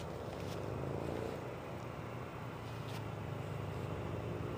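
Squirrel model airplane's motor and propeller droning faintly in flight overhead, the pitch bending slightly as it flies past.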